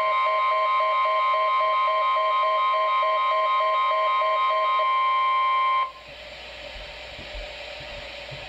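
NOAA Weather Radio 1050 Hz warning alarm tone through a Midland WR-300 weather radio's speaker, loud and steady, with a quick pulsing beep on top. It cuts off suddenly about six seconds in, leaving faint radio hiss.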